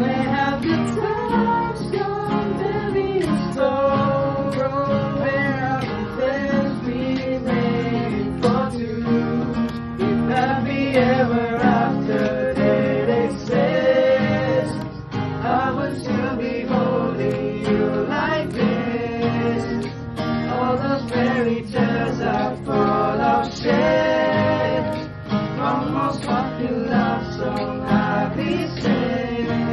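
Music: several voices singing in harmony, sustained sung lines with no clear words picked out.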